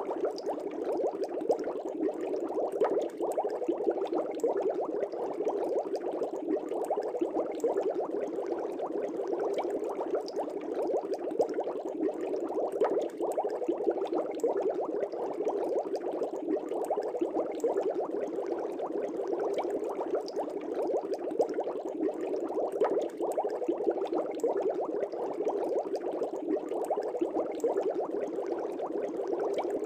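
Aquarium air bubbles rising and breaking at the water surface in a continuous, dense bubbling.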